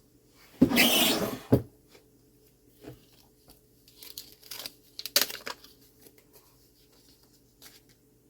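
Workbench handling noise while working on a clock movement: a loud scraping rustle about a second long ending in a sharp click, then a run of smaller scrapes and clicks a few seconds later.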